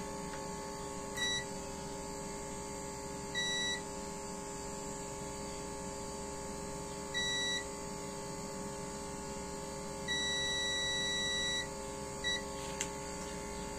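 Digital multimeter beeping in diode/continuity test as the probes touch the legs of a car amplifier's power MOSFET: several short beeps and one long beep of about a second and a half. A beep of this kind means a low-resistance path, which fits the MOSFET being faulty. A faint steady hum runs underneath.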